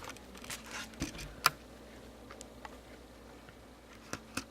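Hands handling and opening a small parts package: scattered light clicks and crinkles, the sharpest and loudest about a second and a half in, and a couple more near the end.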